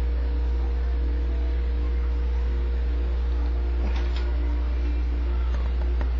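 Desktop computer humming steadily, with a faint machine whir and a few light clicks about two-thirds of the way through and near the end.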